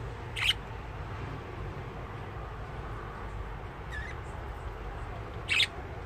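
Budgerigar giving short, sharp chirps: a loud one about half a second in, a faint one around four seconds, and another loud one near the end, over a steady low hum.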